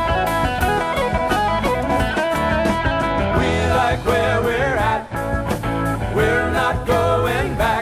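Gospel band song: guitar-led music with a steady beat, with a singing voice coming in about three seconds in.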